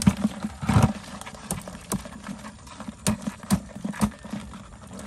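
A woven bamboo crab trap is knocked and shaken over a plastic bucket to tip the catch out. There are about seven irregular knocks and rattles, the busiest in the first second.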